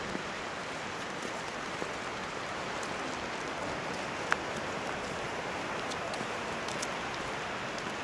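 Steady hiss of falling rain, with one sharp click a little past four seconds in.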